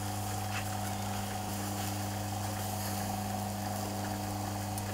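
Small minced-meat kebabs sizzling on a charcoal grill, over a steady low hum.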